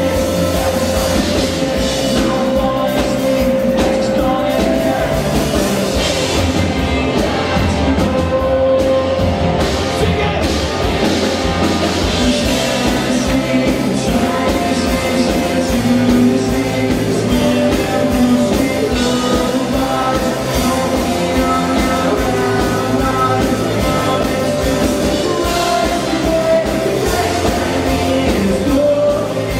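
Indie rock band playing live and loud: electric guitars, bass and drums under a lead vocal, with a steady driving beat.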